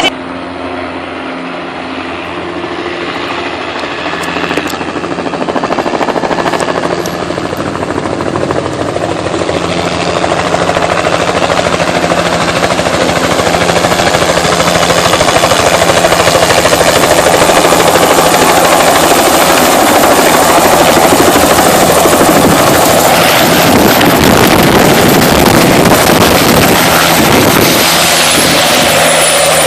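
Helicopter engine and rotor noise, a steady dense drone that grows louder over roughly the first fifteen seconds and then holds loud.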